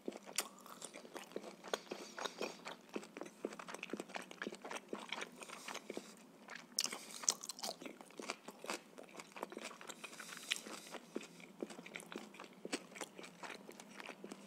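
Close-miked chewing of a piece of grilled shashlik meat: a steady run of small, sharp mouth clicks.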